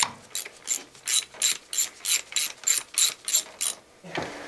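Hand socket ratchet clicking in about a dozen quick, even strokes, roughly three a second, backing out the studs that hold an LS V8's ignition coil bracket. The clicking stops shortly before the end.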